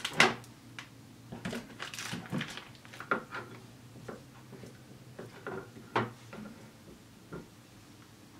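Scattered light clicks and knocks of food preparation: a plastic feta tub being opened and a knife cutting feta on a plastic cutting board. The sharpest knocks come just after the start and about six seconds in.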